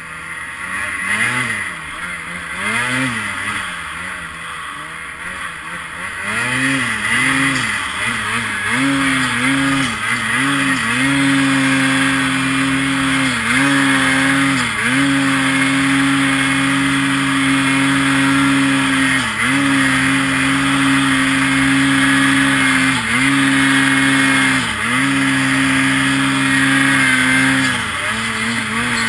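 Ski-Doo Freeride 850 Turbo two-stroke snowmobile engine revving up and down repeatedly at first, then held at high revs under load in deep snow. The revs dip briefly about half a dozen times as the throttle is eased off. A steady hiss runs over the engine.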